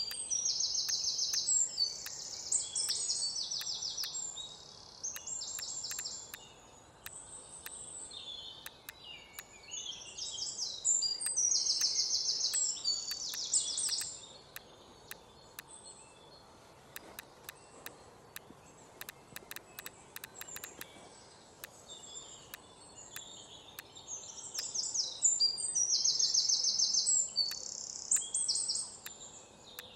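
Birds singing in bouts of rapid, high trills: one at the start, one in the middle and one near the end. Between them is a faint steady outdoor hiss, with scattered short, sharp clicks.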